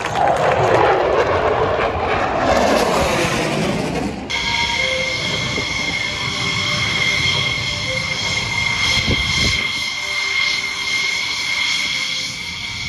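F-16 Fighting Falcon jets passing low overhead. A loud jet rush falls in pitch over the first four seconds, then after an abrupt change gives way to a steadier jet noise with high, steady whining tones.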